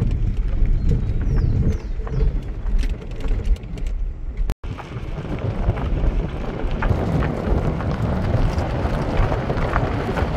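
Low rumble of a moving vehicle, with a few faint chirps over it. After a sudden break about halfway, a rougher hissing noise with scattered clicks.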